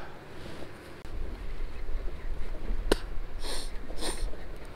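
Two quick sniffs about half a second apart, after a sharp click about three seconds in, over a low steady rumble.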